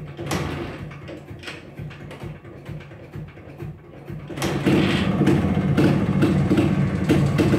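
1982 Yezdi's two-stroke single-cylinder engine being kick-started cold after ten months standing; it catches about four and a half seconds in and runs loudly with a fast, even throb from the exhaust.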